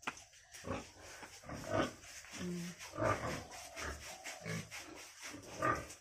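Pigs grunting in their pens: a string of short, irregular grunts.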